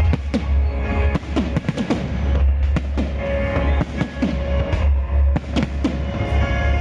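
Fireworks bursting: many sharp bangs at irregular intervals, a few every second, over loud music with a heavy, steady bass.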